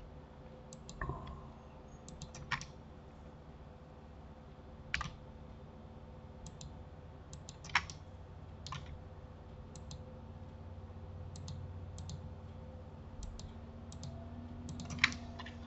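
Computer keyboard and mouse clicks, scattered and irregular, over a faint steady hum.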